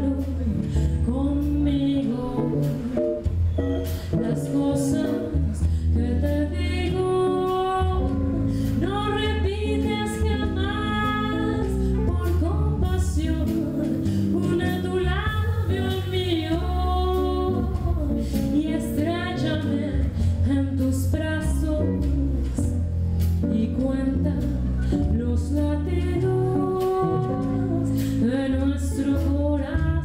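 Live band playing a slow bolero: a woman singing over electric guitar, electric bass and a drum kit, with a steady bass pulse underneath.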